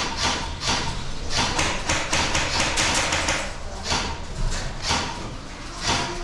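Airsoft firefight: a string of sharp cracks and knocks at irregular intervals, bunched about a second to three seconds in, from shots and BBs striking the building.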